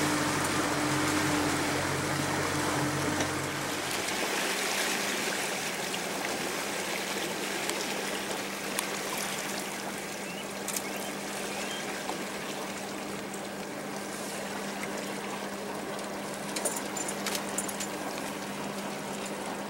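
Water rushing and splashing along the hull of a small motorboat under way, over the steady hum of its motor. The motor's deeper tones drop away about four seconds in, leaving a lighter steady hum under the water noise.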